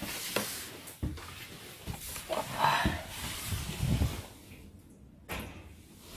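Scattered knocks and thuds of someone climbing stairs to an upper floor, irregularly spaced, with a sharp knock near the end.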